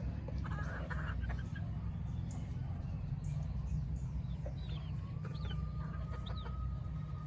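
Gamefowl chickens clucking softly as they feed, with a few short, high, falling chirps in the second half. A steady low rumble sits underneath.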